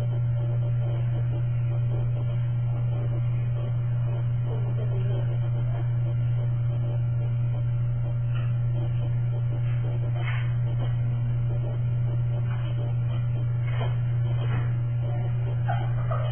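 Steady low electrical hum, with a few faint short sounds scattered through the second half.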